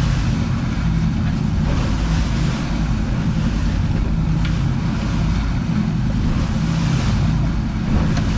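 Outboard motors running steadily while the boat trolls, a low drone under the hiss of the wake and wind buffeting the microphone.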